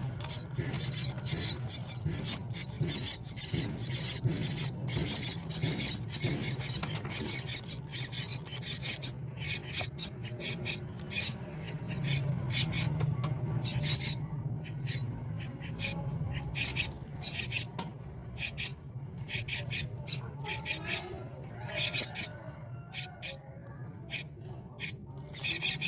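Myna nestlings giving rapid, raspy, high-pitched begging calls, a dense run of short hissing chirps that thins out into scattered calls after about nine seconds, over a low steady hum.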